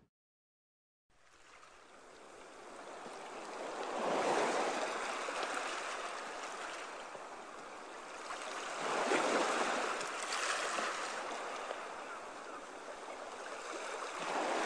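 Rushing river water that fades in about a second in, then swells and ebbs in slow surges roughly every five seconds.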